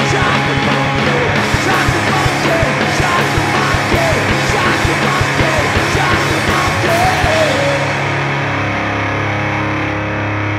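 Live rock duo playing hard: distorted electric guitar and a drum kit, with a shouted lead vocal. About eight seconds in the drums stop and a distorted guitar chord rings on.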